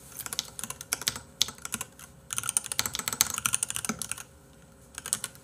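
Typing on a computer keyboard: quick runs of key clicks in bursts, with a short pause about two seconds in and a longer one near the end.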